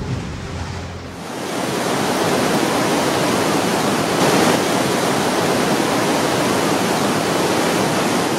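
Storm sound: a low thunder rumble dying away in the first second, then a steady, loud rush of gale-force wind and driving rain.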